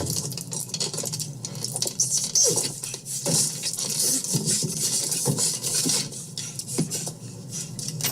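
Irregular light clattering and scraping: a run of small knocks and scrapes with no steady rhythm.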